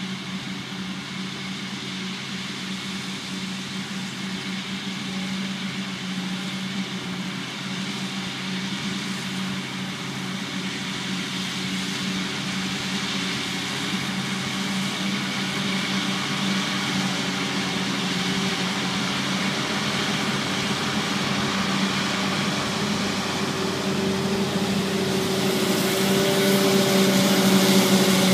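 Diesel engines of a John Deere tractor and a forage harvester running steadily during whole-crop silage harvesting, growing slowly louder as the machines come closer. Near the end the tractor, pulling a silage trailer, passes close by and its engine note rises.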